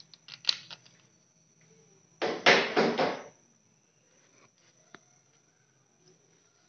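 Handling noise from an automatic water pump controller's plastic terminal box and its wiring: a few light clicks, then a louder rustle lasting about a second, starting about two seconds in, and a few faint ticks after it.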